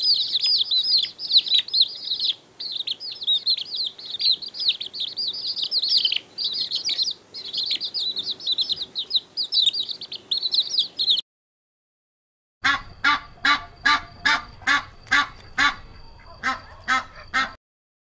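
A dense chorus of chicks peeping, high and continuous. After a short break, domestic geese honk in a quick, regular run of about a dozen calls.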